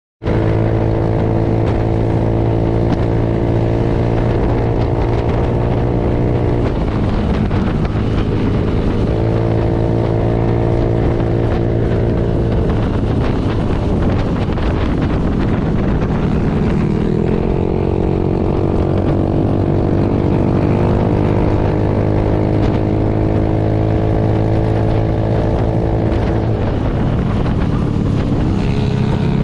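Yamaha scooter engine running under way at cruising speed, with wind rushing over the microphone. Its pitch steps and glides to a new note several times as the throttle changes.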